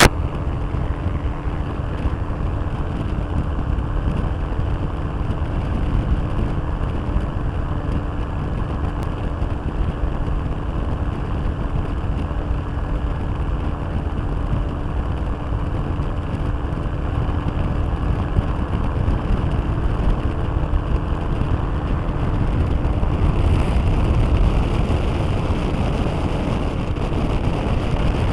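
Rotax 582 two-stroke twin of a microlight trike running steadily in flight, mixed with heavy wind rush on the microphone. The sound gets a little louder and brighter about four-fifths of the way in.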